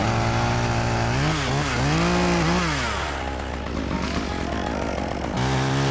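Gas chainsaw running, its engine note revved up and down several times, with a rougher stretch in the middle.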